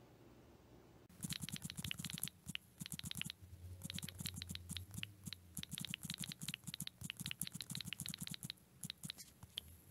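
Rapid taps on a smartphone's on-screen keyboard as a post is typed: a quick, irregular run of light clicks that starts about a second in and stops shortly before the end.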